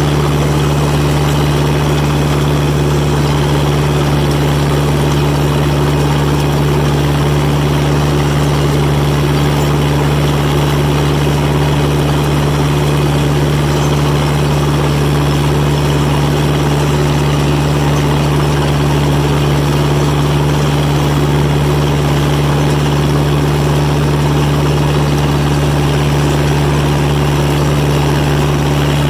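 John Deere 1010 crawler's engine running steadily at about 2,000 RPM as it drives the machine along, a constant low drone that holds the same pitch throughout.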